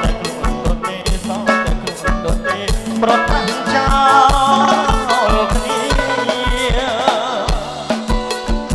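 Live romvong dance band playing: a steady kick-drum beat under keyboard and guitar, with a male singer's wavering melody line over the middle.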